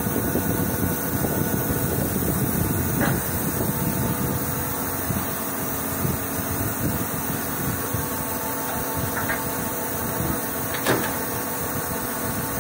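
Milling machine running, a steady mechanical noise with a few faint steady tones under it. Two or three sharp clicks break through, the loudest about eleven seconds in.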